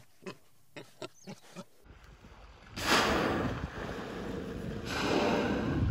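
A bearded pig gives about six short, soft grunts in under two seconds. These give way to a loud, steady rush of wind on the microphone over open water, starting suddenly about three seconds in, which is the loudest sound.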